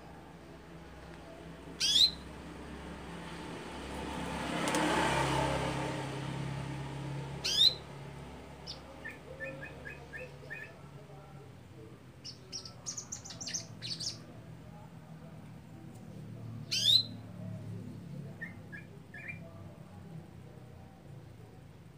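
Domestic canary calling: three loud, sharp, high calls that slur downward, spread several seconds apart, with short soft runs of quick twittering notes between them. A soft rush of noise swells and fades about five seconds in.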